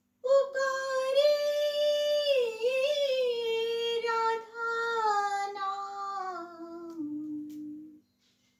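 A woman singing a Hindi devotional song (bhajan) unaccompanied: one long phrase drawn out on held vowels, slowly falling in pitch, with a brief breath about four seconds in. It settles on a lower final note that stops about a second before the end.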